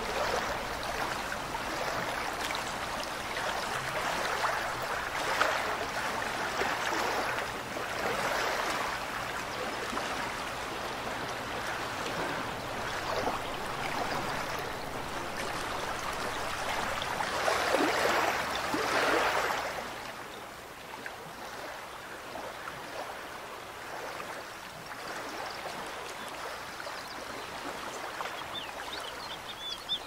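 Mountain stream running, a continuous rush of water. It swells for a couple of seconds a little past the middle, then settles slightly quieter for the last third.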